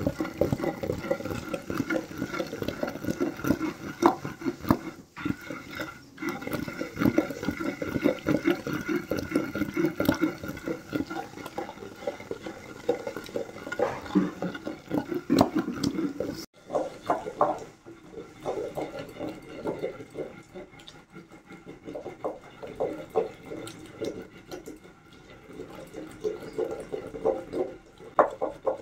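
A long wooden pestle pounding and rubbing a moist paste of almonds, melon seeds, black pepper and green cardamom in a stone mortar, in quick repeated strokes, while sardai is being ground.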